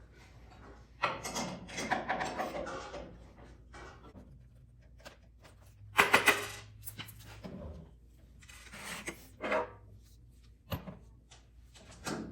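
Irregular handling noises: rustling and scraping, with a quick cluster of sharp knocks about six seconds in and a few single clicks near the end.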